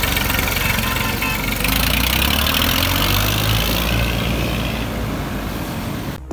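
Massey Ferguson 240 tractor's three-cylinder diesel engine running as the tractor pulls away and drives off, its note stepping up about two seconds in and growing fainter near the end.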